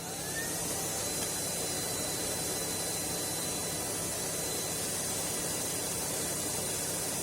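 Dreame Z30 cordless stick vacuum running: its motor finishes spinning up at the very start, then runs steadily with a loud rush of air and a fixed high whine.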